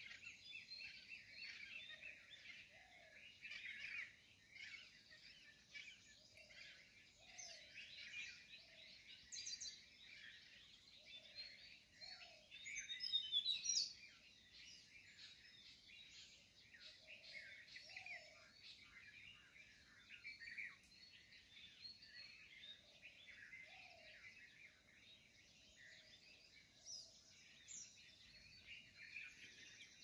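Morning chorus of many small birds chirping and twittering. One bird gives a louder, quicker run of sweeping high calls about thirteen seconds in, and a lower, softer short call repeats every few seconds underneath.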